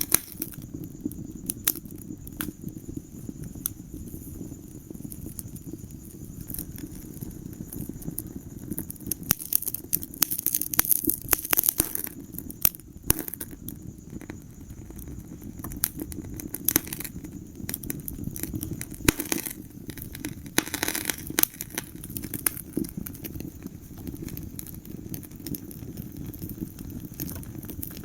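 Wood fire in a fireplace burning with a steady low rumble and frequent irregular crackles and pops, busiest about ten to twelve seconds in.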